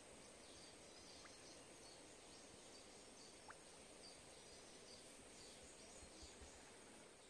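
Faint jungle ambience by a shallow stream: a low, steady wash of sound with high, thin chirps repeating about twice a second and a faint steady high drone.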